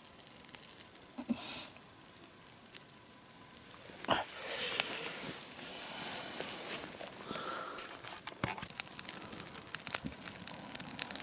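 Small campfire of damp kindling catching, with irregular crackles and pops and the rustle of twigs being handled over a light hiss.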